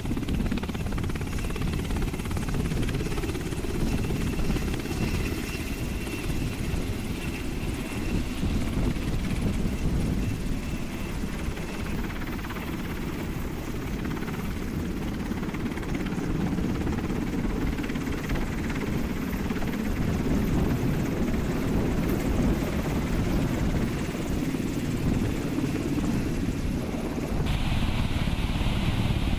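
Black Hawk helicopter hovering and manoeuvring low, its rotor and engine running steadily with a heavy low rumble. A brighter hiss joins in near the end.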